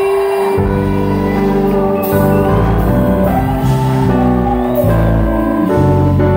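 Live band playing an instrumental passage: long sustained keyboard chords over bass and guitars. A held sung note fades at the start and the bass comes in about half a second in.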